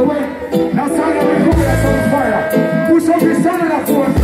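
Live reggae band playing loud over a concert PA, with a man singing into a microphone; the heavy bass drops out for a stretch in the middle and comes back near the end.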